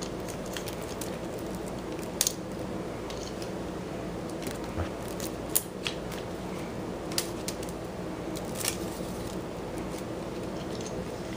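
A kitten playing in a wicker basket: scattered sharp clicks and crackles of claws and woven wicker, a handful over several seconds, over a steady low hum.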